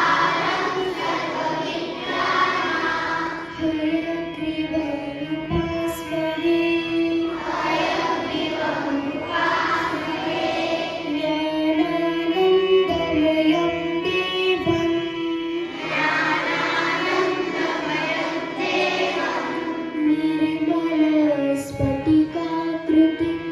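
Music: a group of voices singing a slow melody over a steady low drone.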